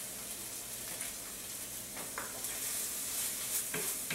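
Ground ham and sausage filling sizzling steadily in a nonstick frying pan as it cooks down dry. A wooden spatula scrapes and stirs it a few times about two seconds in and again near the end.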